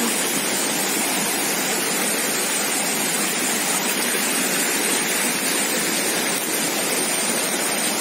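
Shallow rocky stream rushing over stones and small rapids, a steady rush of water.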